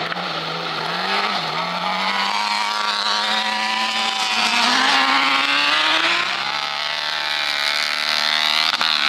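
Autocross prototype buggies racing on a dirt track, their engines running hard under load. The engine pitch climbs steeply about halfway through as a buggy accelerates, then drops back.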